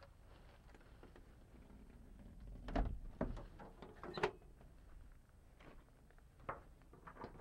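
Hinged hood side panel of a 1952 Sterling truck being lowered and shut: two clunks about a second and a half apart, with a lighter knock later.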